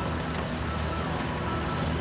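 Heavy diesel engine of a bulldozer running steadily.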